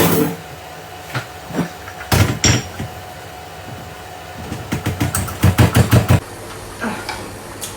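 Kitchen knocks: a single hard knock, two more about two seconds later, then a quick run of about ten knocks lasting just over a second.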